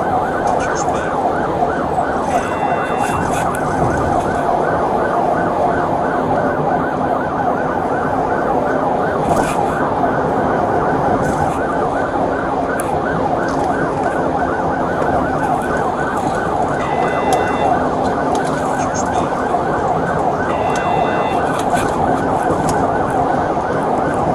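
Police siren on the patrol car, heard from inside the moving vehicle's cabin, cycling rapidly up and down in pitch several times a second. A few short higher beeps sound a few times.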